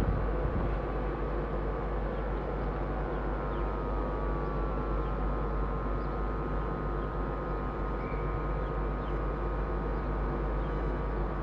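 Steady hum and low rumble from trains standing at a station platform, the nearest a stationary Hitachi Azuma high-speed unit, with a few constant whining tones over the drone.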